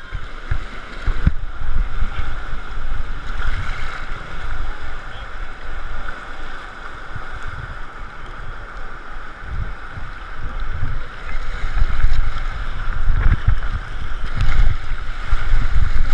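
River rapids churning and sloshing around an action camera riding at the water's surface, with irregular low rumbling knocks that grow louder in the last few seconds.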